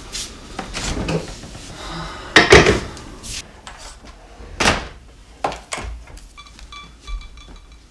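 A series of sharp knocks and thumps, the loudest about two and a half seconds in. Faint, broken high tones follow near the end.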